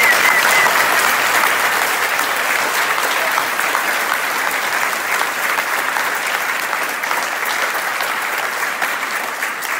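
Audience applauding: a large crowd clapping steadily, starting suddenly and holding throughout.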